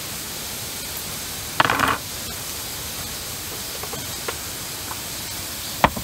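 Thin-sliced beef brisket sizzling in a cast-iron frying pan, a steady hiss. A brief louder rasp comes about a second and a half in, and a sharp click comes near the end.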